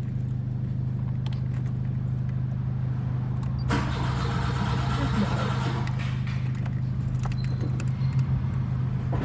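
A 1992 VW Voyage's 1.8 four-cylinder engine being cranked over on the starter during a hard start, a steady low drone. For about two seconds in the middle a louder rush of noise comes in.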